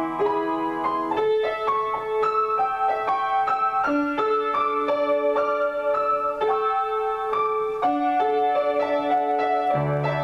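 Solo piano improvisation: a steady flow of notes in the middle and upper register, with deep bass notes coming in near the end.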